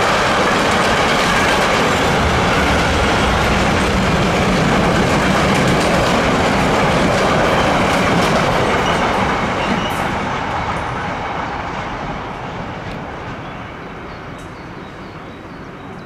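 Freight train of container flat wagons and covered goods wagons rolling through without stopping: a loud steady rumble and rush of wheels on rails that fades away over the last six seconds or so as the end of the train passes.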